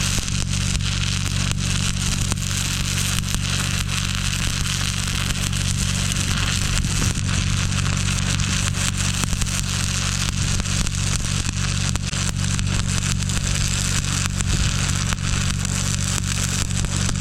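Stick welding arc crackling and sizzling steadily as a bead is run on steel, with a steady low hum underneath.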